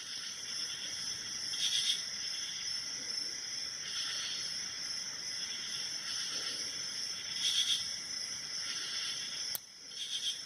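Hook pick working the pins of a Mako 427 six-pin padlock under a tension wrench: faint scraping in the keyway, louder in a few short spells, and a single sharp click near the end. A steady high hiss runs underneath.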